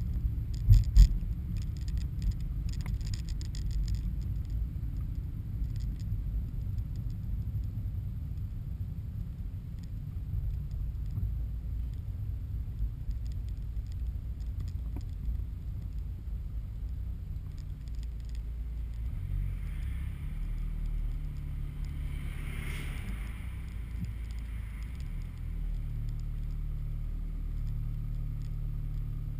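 Car's engine and tyre rumble heard from inside the cabin while driving, steady and low. A few sharp knocks come in the first three seconds, and a rush swells and fades about two-thirds of the way through.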